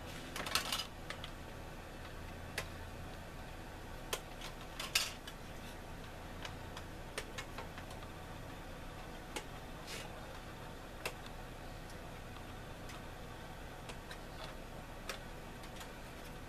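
Scattered sharp plastic clicks and light clatter as a model kit's sprue frame and wing parts are handled, a few at a time, with a faint low hum in the first ten seconds.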